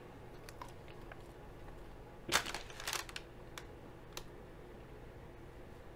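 Soft eating noises: a few faint clicks and, a little over two seconds in, a short louder rustling burst, over low room hum.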